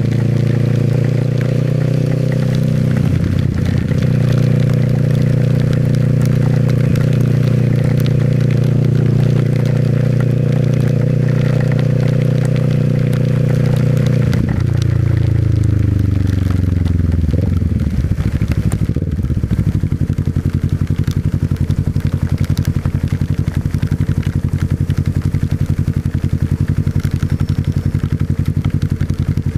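Small motorcycle's engine running at a steady speed, then winding down about halfway as the bike slows. It settles into a lower, pulsing run, with a steady hiss over it.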